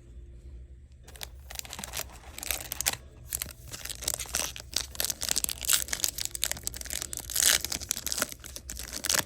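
Trading-card pack wrapper being torn open and crinkled. It starts about a second in and becomes a dense run of crackling rustles.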